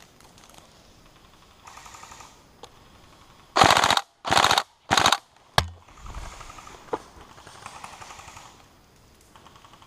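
Airsoft electric rifles firing on full auto: three loud, short bursts in quick succession about midway, with fainter bursts from other guns before and after, and a single dull thump just after the loud bursts.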